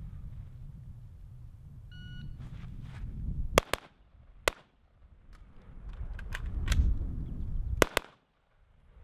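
AR-15 rifle shots on a shot timer: the timer beeps once about two seconds in, then a quick double tap follows, a single shot a second later, and another double tap near the end.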